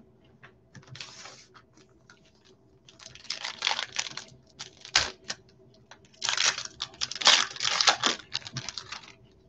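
Donruss football trading cards being shuffled and flipped through in gloved hands: bursts of crisp papery rustling and clicking, with a sharp tap about five seconds in and the busiest flicking near the end.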